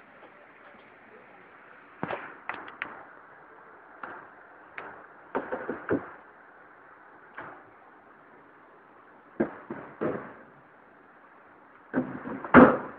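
Plastic storage bins being handled on a steel shelving rack: irregular hard knocks and short clattering runs in clusters, over a faint hiss, with the loudest clatter near the end.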